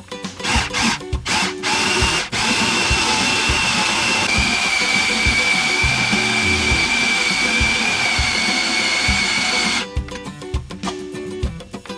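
Electric kitchen blender blending raw marinated chicken. It is first pulsed in a few short bursts, then runs continuously with a high motor whine that drops a little in pitch about four seconds in, and it stops shortly before the end.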